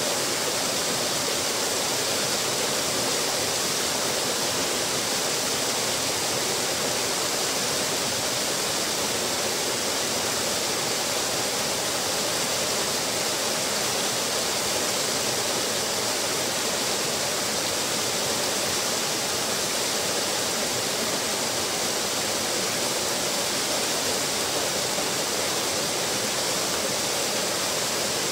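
Small waterfall splashing steadily over a stone wall into a pool: an even, constant rush of falling water.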